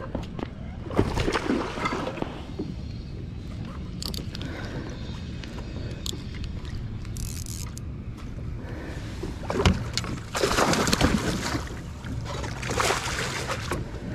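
Water splashing and sloshing beside a plastic kayak as a hooked bass is fought up close, in several bursts, the biggest about ten seconds in. A steady low wind rumble lies under it.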